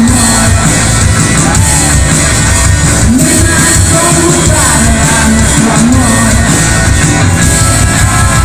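Live rock band playing loud through a PA: electric guitars and a drum kit in a dense, continuous wash of sound.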